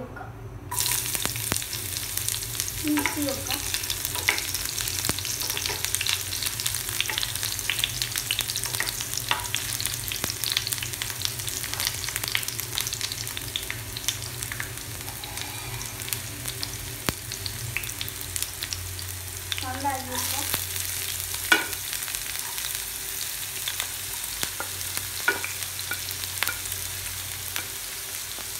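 Hot oil sizzling in a nonstick frying pan, crackling and popping densely as mustard seeds splutter, then with sliced shallots frying in it, stirred now and then with a wooden spatula.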